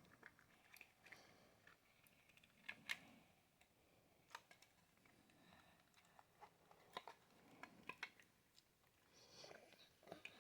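Near silence with a few faint, scattered clicks and taps at irregular intervals.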